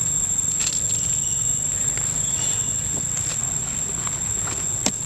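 Steady high-pitched insect drone over a low rumble, with a few short clicks, the sharpest one just before the end.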